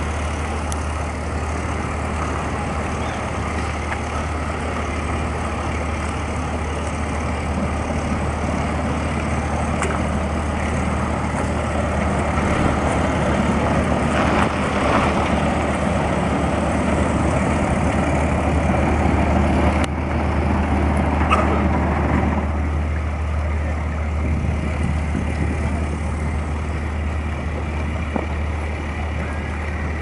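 Cargo ship's engine running with a steady low hum close by. From about twelve seconds in, churning water joins it and the noise swells for several seconds before easing off.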